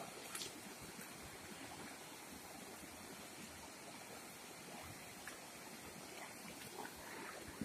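Faint, steady rush of a shallow, rocky river flowing, with a couple of brief faint clicks, one just after the start and one near the end.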